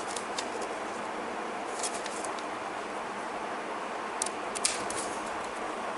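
Scissors cutting through a strip of paper: a few short, sharp snips in small groups, near the start, about two seconds in, and twice just past four seconds in, over a steady low hiss.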